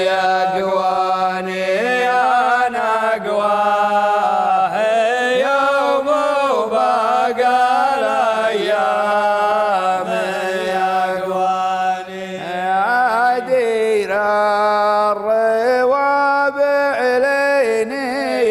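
A man singing an Arabic Nabati poem unaccompanied, in a slow, mournful, expressive melody, drawing the words out into long ornamented notes over a steady low drone.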